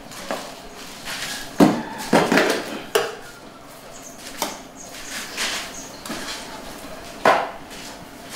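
A few sharp knocks and clatters of hard objects, the loudest about one and a half seconds in and again near the end.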